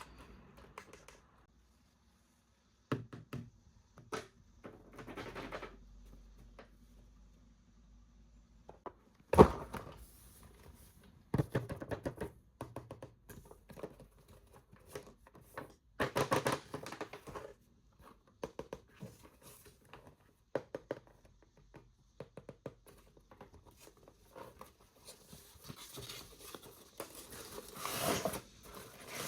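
Plastic packaging crinkling and tearing in short spells, with clicks, knocks and thunks of a toy and its box being handled; one sharp knock about nine seconds in.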